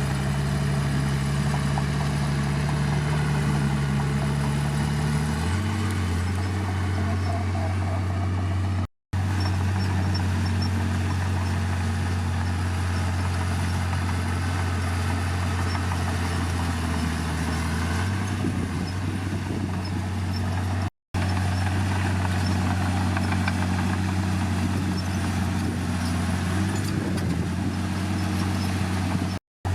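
Heavy earthmoving machine's diesel engine running steadily, its pitch shifting down about five seconds in and changing again near eighteen seconds. The sound cuts out for an instant three times.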